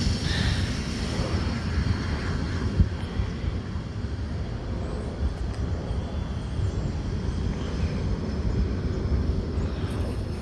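Jet engines of a small business jet running on the ground, a thin high whine fading over the first couple of seconds over a steady low rumble, with wind on the microphone.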